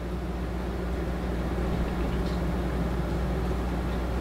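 Electric space heater running on its highest setting with a burger patty on its grille: a steady low hum over an even rushing noise.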